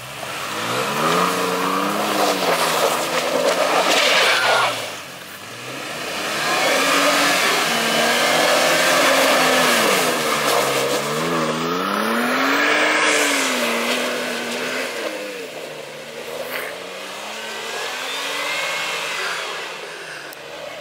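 A vehicle engine revving up and down again and again as the vehicle spins donuts in snow, over a steady hiss of spinning tyres churning the snow and slush.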